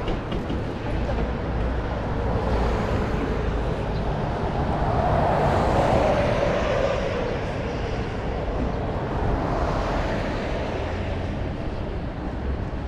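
A road vehicle passing along the street: its engine and tyre noise swells to a peak about six seconds in and fades away, over a steady background of traffic.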